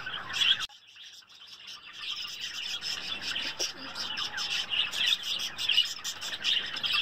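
Many small birds chirping and twittering in a dense, continuous high-pitched chorus. It drops out sharply shortly after the start and returns over the next second or so.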